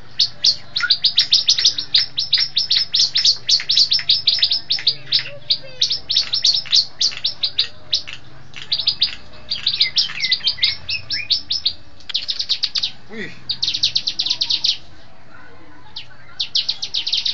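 Bar-winged prinia (ciblek) singing its aggressive fighter song: rapid runs of sharp, high chirps at about eight a second, with a short break past the middle and a longer pause near the end.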